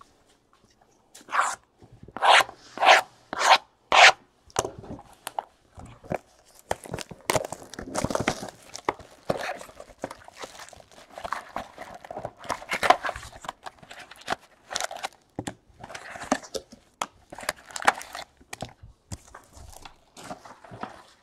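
Hands sliding and unwrapping shrink-wrapped cardboard trading card boxes. A run of five quick, sharp scraping rubs comes about a second in, followed by irregular rustling, crinkling and scraping as the plastic wrap is torn off and a box is opened.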